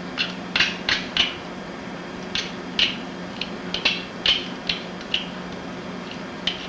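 Sharp, irregular clicks and snaps from knife work on a raw chicken being deboned, about a dozen in all, clustered in the first half and middle, over a steady low hum.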